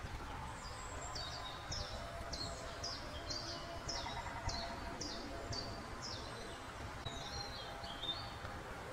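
A songbird singing a run of high, repeated notes, each sliding downward, about two a second, breaking into a short jumbled twitter near the end, over a low steady outdoor rumble.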